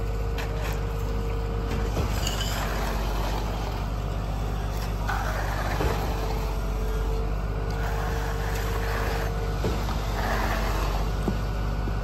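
Diesel engine of a concrete pump truck running steadily, a low drone, with a hissing rush about five seconds in and again near ten seconds.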